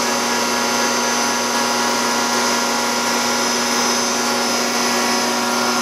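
Diesel injection pump test stand running steadily, turning a rebuilt six-cylinder Bosch inline injection pump during a fuel delivery check: an even mechanical hum with a constant tone over a hiss.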